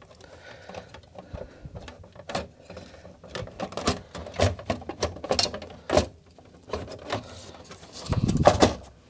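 Plastic case of a Commodore MPS 1500C dot-matrix printer being pushed and fitted back over its mechanism by hand: irregular plastic clicks, knocks and scraping, with a heavier bump and a cluster of knocks near the end.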